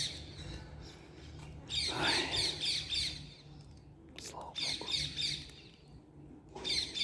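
A bird calling in quick runs of short, falling chirps, three bursts of them: about two seconds in, around five seconds in, and near the end.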